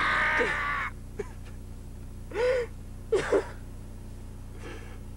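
A person's loud, strained gasp lasting about a second, then a few shorter gasping sounds from the voice, without words.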